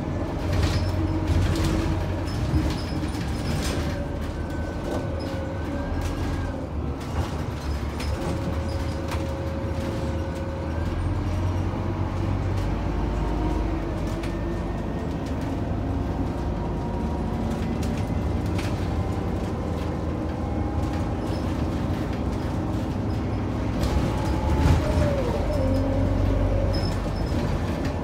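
Scania K94UB bus under way, heard from on board: its 9-litre Scania DC9 six-cylinder diesel and ZF five-speed automatic running, with the engine note shifting in pitch. Short clicks and rattles come through throughout, and it gets louder near the end.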